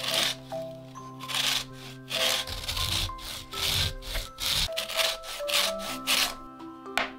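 A lemon rubbed back and forth on a handheld metal grater, zesting the peel: rhythmic rasping strokes, about two a second, over soft background music.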